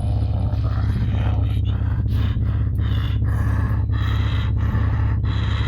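A steady low hum under a run of short, breathy, voice-like sounds that come roughly twice a second.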